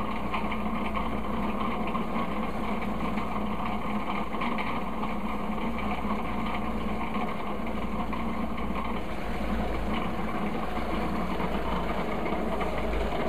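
Food processor motor running steadily, its blade churning frozen banana chunks into banana soft serve. The mix is just turning creamy and is nearly done.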